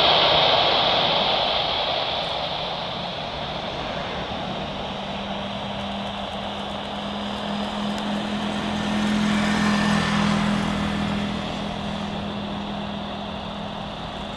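Jet engines of a Boeing 737 Classic freighter landing: a loud rushing jet noise as it passes low over the runway, easing off over the next few seconds. A steady low hum swells again about eight to eleven seconds in, as the aircraft rolls out after touchdown, then fades.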